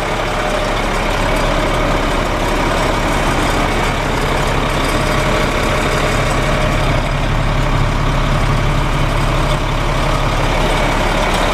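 Diesel engine of a Sterling LT9500 heavy truck idling steadily, heard from inside the cab.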